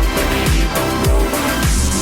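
Background electronic dance music with a heavy kick drum, about two beats a second.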